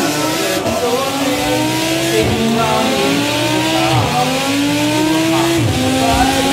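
Race-car engine sound revving up through the gears: the pitch climbs, drops back sharply and climbs again three times. The toy car is electric, so this is a recorded engine sound, not the toy's motor.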